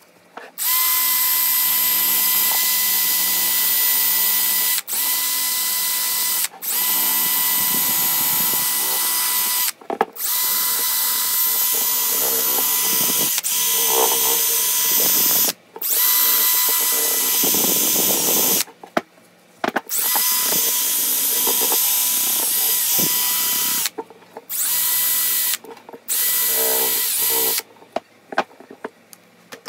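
Cordless drill spinning a wire cup brush against the rusty steel head of a sledge hammer, scouring off rust. It runs in long stretches with a steady whine, broken by several brief stops, and stops for good a couple of seconds before the end.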